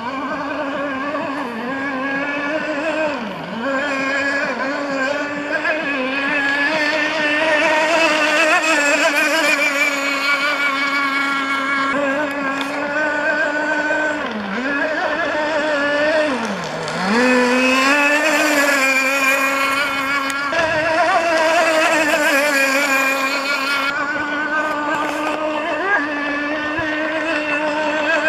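Radio-controlled racing powerboat running at high revs. Its engine note dips in pitch briefly three times, each time recovering at once.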